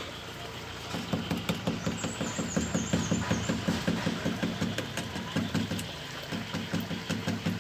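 A small engine running with a rapid, even chugging pulse of about six beats a second; it starts about a second in and drops out briefly near the end before resuming.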